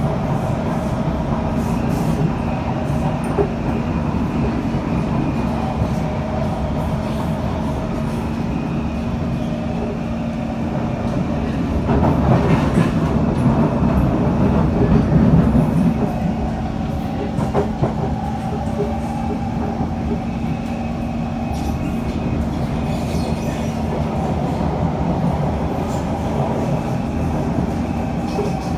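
Interior of a C151 metro train with permanent-magnet synchronous traction motors running at speed on elevated track: steady wheel-on-rail rumble with a steady hum running through it. The rumble gets louder for a few seconds about twelve seconds in.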